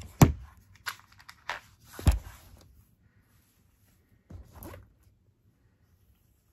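Several sharp knocks and rustles close to the microphone, the loudest about a quarter second in and again about two seconds in, with a softer scrape about four and a half seconds in: handling noise as the recording device is touched and adjusted.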